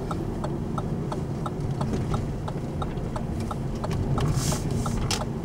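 Steady road and engine rumble inside a moving car, with an even clicking about three times a second over it. A brief rush of hissing noise comes about four seconds in.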